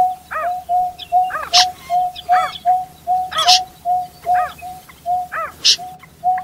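Bird calls in a rice field at night: a steady run of short hooting notes on one pitch, about two and a half a second, with rising-and-falling notes and a few sharp high bursts mixed in.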